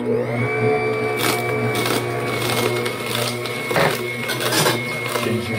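Electric vertical juicer running with a steady motor hum as celery stalks are pressed down the chute, cracking and crunching several times while the auger crushes them.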